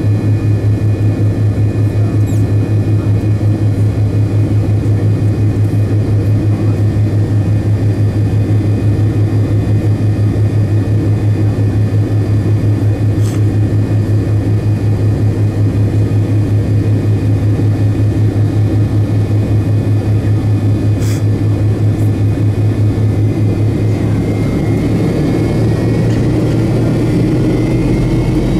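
Jet engines of a McDonnell Douglas MD-88, its rear-mounted Pratt & Whitney JT8D turbofans, heard from inside the cabin near the tail. They run with a loud low hum and a fast throb, then start spooling up near the end, with a whine rising in pitch as thrust comes on.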